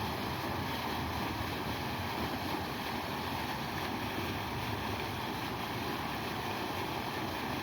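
Steady rushing noise with no breaks and no bird calls.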